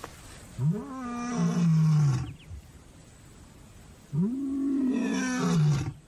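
Lion roaring: two long calls, each rising in pitch at the start, held, then falling away.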